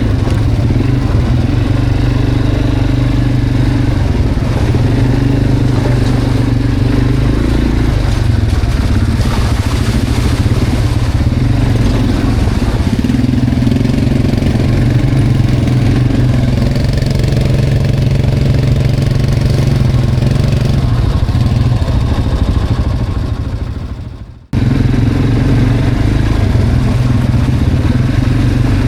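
Quad bike engine running steadily under load while riding a rough, muddy trail, rising and falling with the throttle. Near the end the sound fades and drops out for a moment, then comes back at full level.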